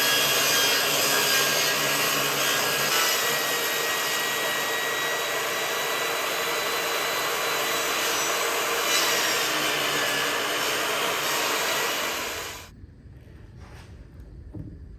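Electric power tool running steadily on wood, with a faint motor whine, stopping suddenly about thirteen seconds in.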